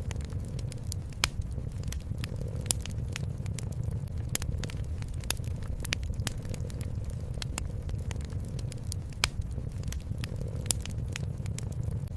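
Wood fire crackling, with irregular sharp pops and snaps over a low, steady rumble.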